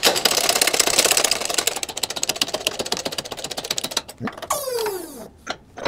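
Hydraulic shop press with a bottle jack pressing a small bearing into an overdrive's rear housing: a fast, even clattering for about four seconds, fading after the first two. A short squeak falling in pitch follows near the end.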